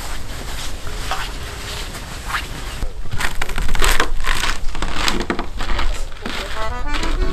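Footsteps of winter boots crunching on packed snow, about two steps a second, growing louder about three seconds in as the walker comes closer. A few notes of background music come in near the end.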